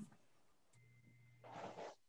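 Near silence: room tone, with a faint steady hum starting under a second in and a faint brief rustle about one and a half seconds in.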